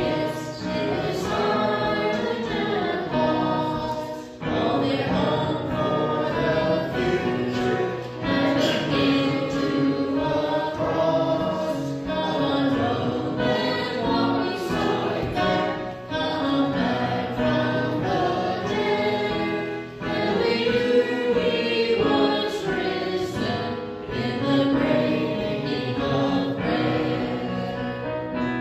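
A small church choir of men's and women's voices singing a hymn in unison phrases, with keyboard accompaniment; the singing pauses briefly for breath about every four seconds.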